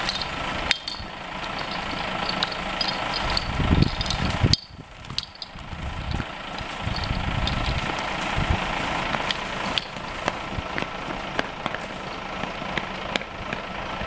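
An engine running steadily, with scattered short clicks and knocks as fire hoses are laid out and coupled on the tarmac.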